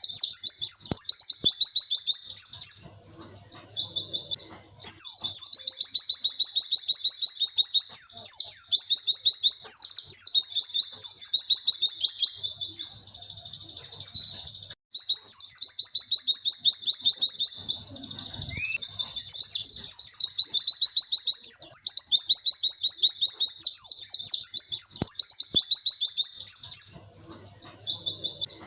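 White-eye (pleci) singing its long, fast 'witwit' song: a high-pitched, rapid run of repeated notes, broken by short pauses about four times.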